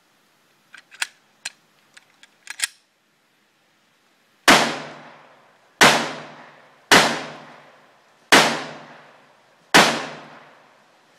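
Glock 20 10mm pistol fired five times, about one to one and a half seconds apart, each shot fading out over about a second. A few light clicks come before the first shot.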